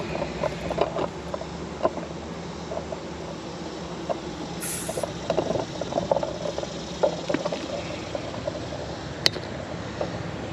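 Scattered light clicks and knocks of a ratchet working the awning's mounting bolts, with a sharp click about nine seconds in, over a steady low background hum.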